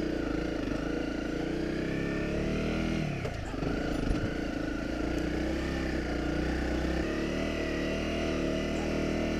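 Honda CRF250 Rally's single-cylinder engine running under throttle as the motorcycle rides through soft sand. The engine note rises and falls, with a brief dip about three seconds in.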